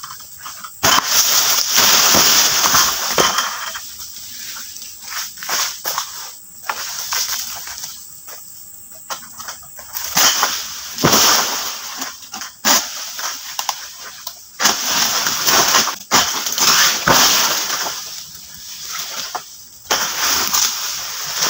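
A Palm King Pro egrek, a long-pole harvesting sickle, being pulled through oil palm fronds: repeated sudden bursts of rustling and crashing from the cut fronds, each lasting a second or few, about eight times.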